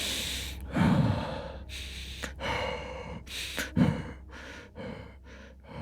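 A person panting and gasping for breath, about ten quick heavy breaths that grow shorter and fainter: catching their breath on waking from a nightmare.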